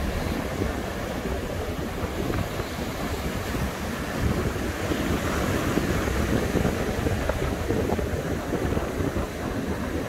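Heavy ocean surf breaking and washing up a sandy beach in a steady roar, with wind buffeting the microphone.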